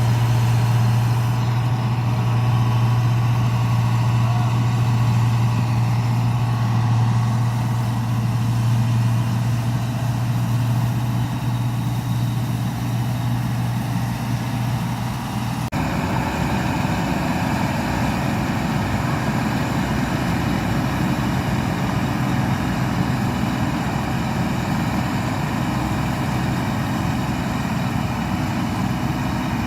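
New Holland 8070 combine harvester engine running with a steady low drone. About halfway through the sound changes abruptly: the hum weakens and a rougher, broader machine noise takes over.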